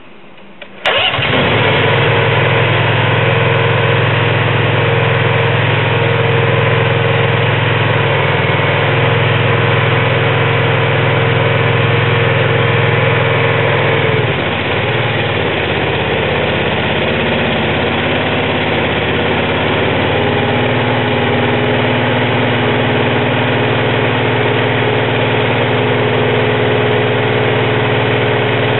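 Small engine of a MARPOL VDM-G100-XL drilling rig's hydraulic power unit starting about a second in and then running steadily at a fast idle. Its note shifts a little about halfway through as the hydraulic controls are worked.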